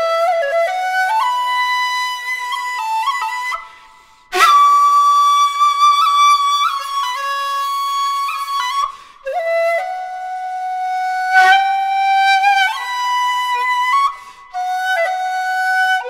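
A short bamboo shakuhachi, the 1.4 size, played solo: long held notes that step from pitch to pitch, with pauses for breath about four seconds in and again near the end. A strongly blown high note starts right after the first pause.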